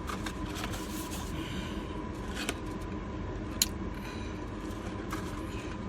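Steady hum of a car's air conditioning with the engine running, with a few faint clicks and one sharp click about three and a half seconds in.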